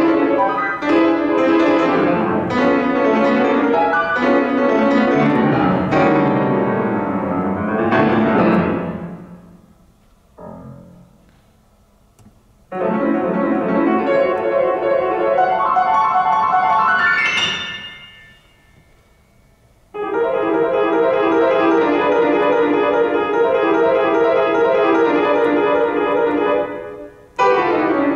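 Yamaha grand piano played solo: fast passages with quick upward runs, twice letting the sound die away into a pause of about two seconds before the playing restarts abruptly.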